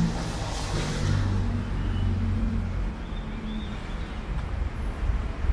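City traffic: a motor vehicle's engine humming for the first few seconds over a steady low rumble of street traffic.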